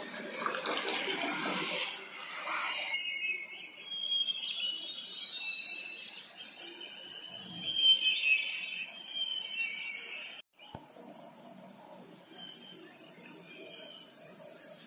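Nature-film soundtrack: a rushing, surf-like noise for the first few seconds, then birds chirping, and after a brief dropout about ten seconds in, a steady high trill of crickets or similar insects.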